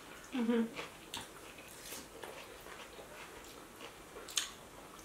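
Close mouth sounds of people chewing quesabirria tacos, quiet and scattered with small wet clicks. A short hummed voice sound comes about half a second in, and a sharper click about four seconds in.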